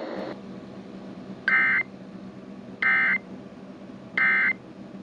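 Three short bursts of EAS SAME digital data tones, the end-of-message signal that closes a weather radio alert, about a second and a half apart over a steady radio hiss and hum.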